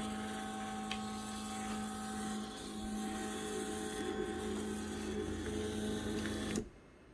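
IndexPnP pick-and-place machine running with a steady electric hum made of several held tones, cutting off suddenly near the end.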